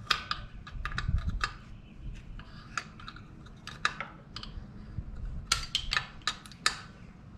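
Scattered sharp light clicks and taps of metal parts being handled on an engine's intake, some in quick runs of several per second.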